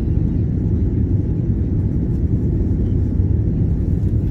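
Steady low rumble inside an airliner's cabin as it climbs after takeoff: engine and airflow noise.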